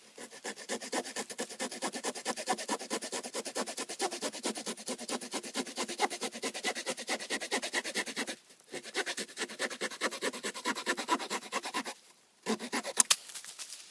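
Victorinox Farmer Swiss Army knife's small saw blade cutting through a piece of wood in quick back-and-forth strokes. The strokes stop twice briefly, then a short last burst ends with a sharp click; the blade jams a bit toward the end of the cut.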